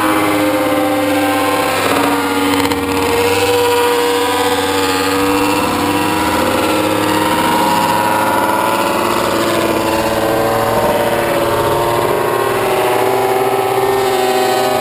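800 cc four-cylinder MotoGP racing motorcycle engines at high revs, several overlapping, loud and continuous. Their pitch drifts up and down as the bikes accelerate and brake around the track.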